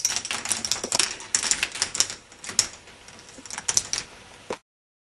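K'nex ball machine: plastic balls clicking and clattering against plastic track and connectors, a dense run of sharp clicks that thins out after about two and a half seconds and cuts off abruptly near the end.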